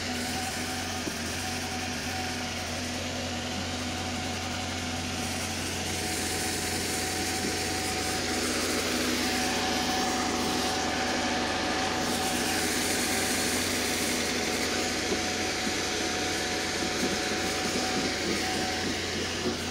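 Homemade bandsaw mill running steadily, its band blade cutting along a long spruce log, with a constant machine hum and steady whine.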